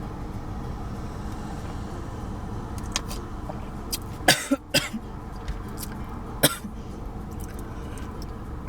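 A person coughing: a short run of coughs about halfway through, then one more cough a couple of seconds later, over a steady low rumble.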